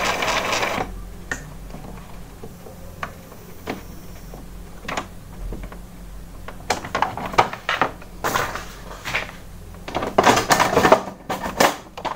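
Scattered light clicks and short rustling, scraping noises from an Epson inkjet printer being switched off and handled, with a busier cluster of them about two-thirds of the way in.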